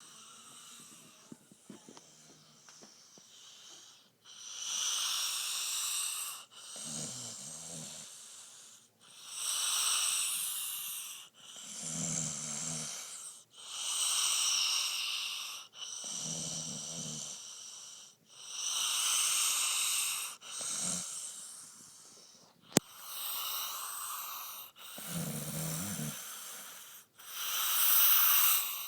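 A man snoring loudly in deep sleep. Rattling low snores alternate with long hissing breaths, about one breath every four to five seconds, after a quieter start. There is one sharp click about two-thirds of the way through.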